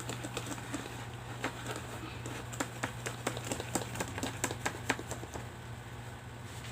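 Fork stirring PVA glue and water in a bowl, with irregular light clicks and taps of the fork against the bowl over a steady low hum.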